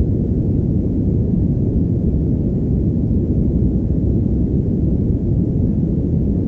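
Steady deep rumble with no tune or voice in it, a soundtrack sound-design bed of low noise that holds at an even level throughout.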